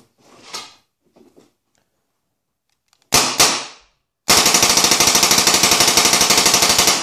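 Bob Long Defiant electronic paintball marker being fired on air with no hopper fitted: two single shots about three seconds in, then a fast string of more than ten shots a second from rapid trigger pulls in semi-automatic mode on its very light trigger. A few faint handling clicks come first.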